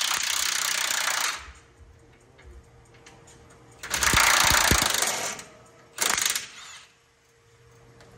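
Cordless impact wrench hammering on a tight front-suspension mount nut in three bursts: one that stops about a second in, a longer one about four seconds in, and a short one about six seconds in.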